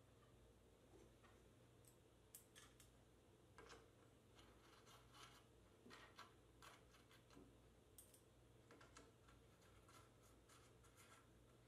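Near silence, broken by faint, scattered metallic clicks of a hex key and bolts being worked on an aluminium extrusion frame.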